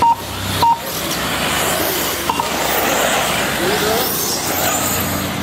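Two short, loud electronic beeps in the first second, and a fainter pair a little past two seconds in. Under them is the steady noise of 1:8-scale electric RC buggies running on a dirt track.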